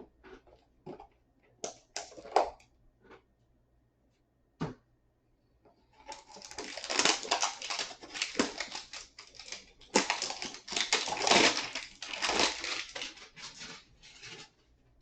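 A trading-card hanger box being opened by hand: a few light clicks and taps at first, then from about six seconds in a long stretch of crinkling and tearing packaging.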